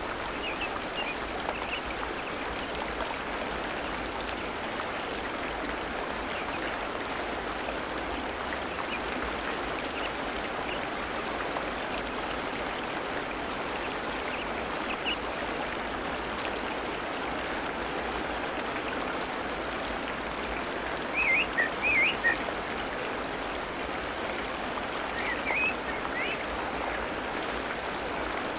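Steady rush of running water in the otter pool, with a few brief high squeaks about three quarters of the way through and again shortly after.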